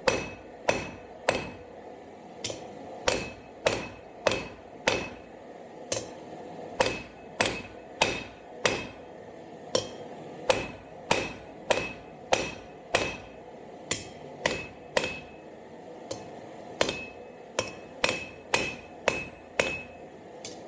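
A 32-ounce hammer striking hot half-inch square steel bar on an anvil, forging a taper: a steady run of blows about one and a half a second, each with a short metallic ring, broken by a few brief pauses.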